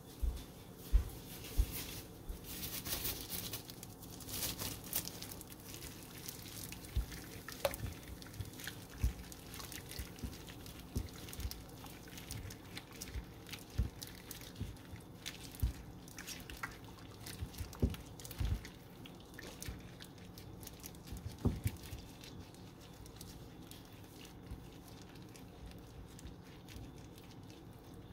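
Irregular wet clicks, drips and light taps of meat being mixed in a liquid marinade in a bowl.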